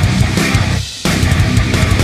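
Loud heavy-metal style intro music, hard and driving, with a brief drop just before the one-second mark.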